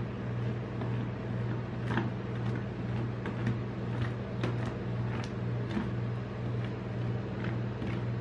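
Metal spatula scraping and tapping on a metal ice-cream cold plate, a few sharp scrapes and clicks a second as the frozen ice cream is smoothed flat, over the steady low hum of the plate's refrigeration machine.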